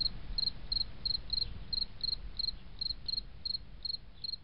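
Cricket chirping steadily, about three short high chirps a second, over a low steady rumble.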